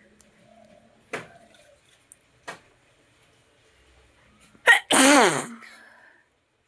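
A person sneezing once about five seconds in: a short sharp intake, then a loud sneeze whose voice slides steeply down in pitch. Two brief faint sounds come before it.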